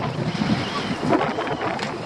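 Wind buffeting the microphone and choppy sea water around a small open boat, with a few light knocks in the second half as a lobster pot is handled.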